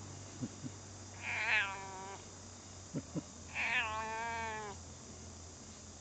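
A cat meowing twice, each meow about a second long, with a few soft knocks before each.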